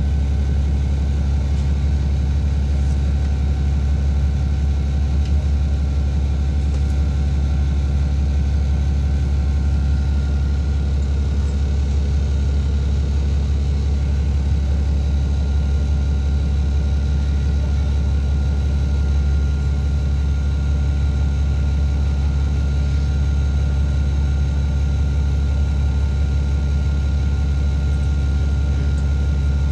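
Engine of an ADL Enviro400MMC double-decker bus idling, heard from inside on the upper deck: a steady low drone with a faint, steady high whine above it.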